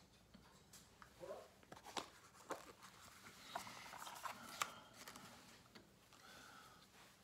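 Faint handling noises of a clear plastic coin capsule and small cardboard coin boxes on a stone countertop: scattered clicks and taps, with light paper rustling. The sharpest tap comes about four and a half seconds in.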